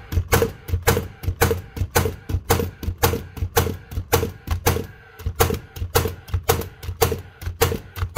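Paslode AM360 nail gun firing shot after shot in quick succession, about two to three sharp bangs a second, with a faint steady hum under them. It keeps firing without cutting out, showing none of the red-light fault it came in with.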